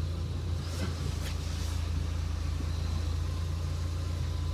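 2001 Audi TT's 1.8-litre turbocharged four-cylinder running steadily at low revs as the car creeps along in reverse, with a few faint clicks about a second in.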